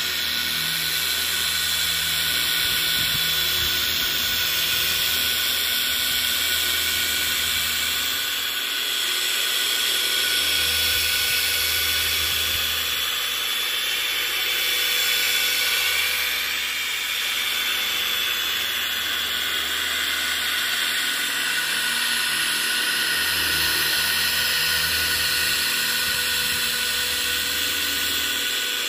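Corded electric car polisher running steadily with its pad on a car's painted hood, buffing an all-in-one polish into the paint. It makes a constant motor whine whose low hum swells and eases slightly at times.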